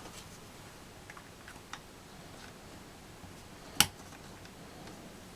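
Faint clicks and taps of plastic laptop parts being handled, with one sharp click about four seconds in.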